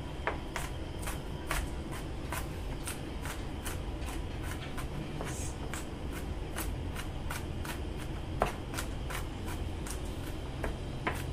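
Chef's knife chopping salted garlic on a plastic cutting board: a steady run of quick taps, about three or four a second, with a couple of harder strikes near the end.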